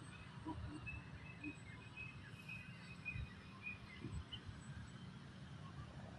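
Faint outdoor ambience: a steady low rumble and a run of short, high bird-like chirps in the first few seconds.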